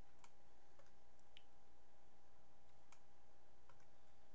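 About half a dozen faint, scattered clicks of a computer mouse and keyboard as the 3D software is operated, over a steady faint hum.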